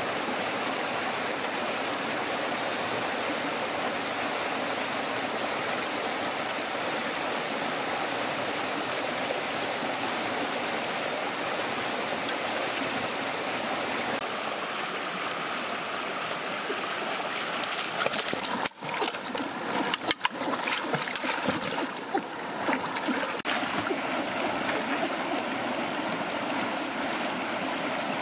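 Shallow rocky stream rushing steadily over stones, with a few seconds of irregular splashing past the middle as someone grabs at a fish in the water.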